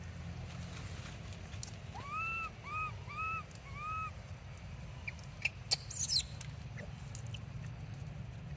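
Baby monkey crying: four short arched calls, each rising then falling, in quick succession, followed a couple of seconds later by a few sharp clicks.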